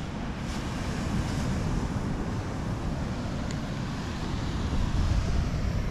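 Wind buffeting the microphone: a steady, low, rumbling rush with no break.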